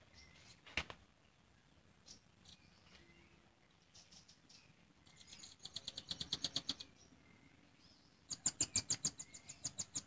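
Nuthatch chattering in two bursts of rapid, sharp, high notes, about eight a second, the first about five seconds in and the second near the end, with faint short chirps between them.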